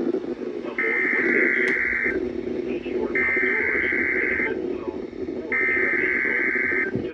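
Emergency Alert System SAME digital header: three raspy data-tone bursts, each about a second and a quarter long and about a second apart, over steady radio hum and static. The header opens a new alert message, the next tornado warning.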